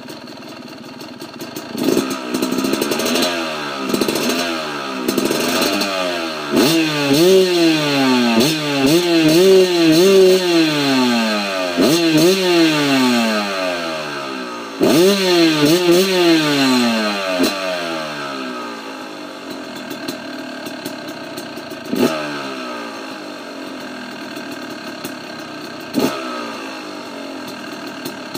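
2013 Yamaha YZ250 single-cylinder two-stroke dirt bike engine, fitted with an FMF Fatty expansion chamber and FMF Q Stealth silencer, revved in a string of quick throttle blips, each pitch rising and falling. After about eighteen seconds it drops back to idle, with two short sharp blips later on.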